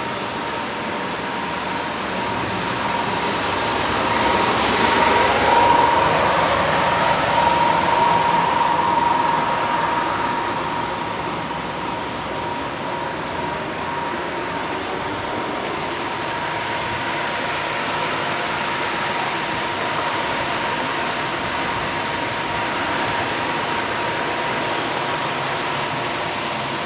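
Steady rushing noise of traffic over a town at night, with a vehicle passing by and swelling louder about four to ten seconds in, over a steady high hum.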